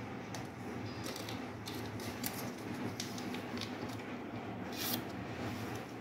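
Small clicks, taps and plastic crinkling from hands working the fibre at a fusion splicer sitting in a plastic bag, with a short rustle about five seconds in, over a steady low hum.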